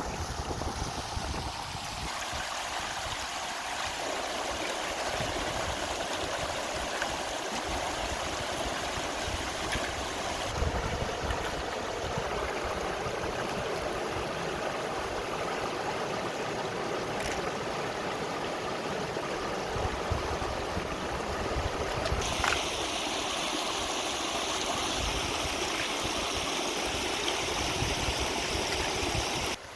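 Steady rush of flowing stream water, with wind buffeting the microphone underneath; the water sound grows brighter and hissier about three-quarters of the way through.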